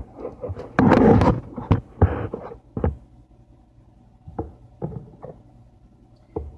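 A loud rustling burst about a second in, then a run of separate knocks and thuds, as things are handled and set down in a kitchen.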